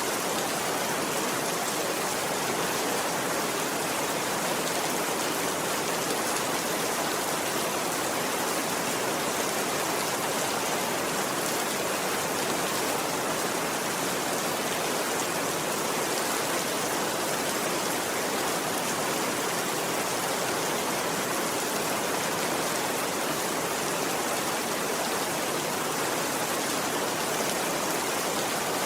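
Steady rain falling, an even, unbroken hiss that does not change in level.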